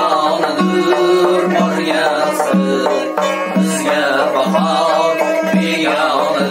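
An Azerbaijani tar plays a busy plucked melody, with a doira frame drum keeping a steady rhythm of deep strokes under it.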